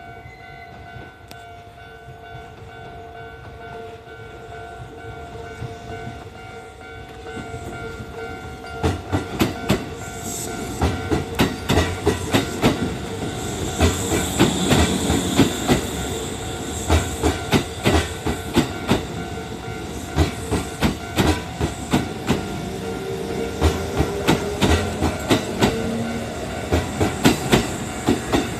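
Japanese level-crossing warning bell ringing in steady tones. From about eight seconds in, a Kintetsu electric train passes over the crossing, its wheels clacking over the rail joints in rapid pairs.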